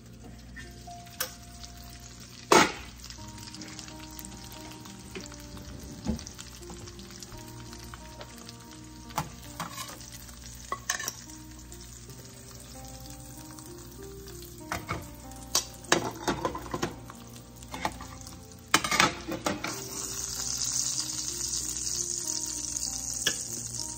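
Pork chops and pan juices sizzling in a stainless electric skillet, with sharp metal clinks and knocks of a fork against the pan and plate as the chops are lifted out. The sizzle grows louder over the last few seconds, once the chops are off the pan.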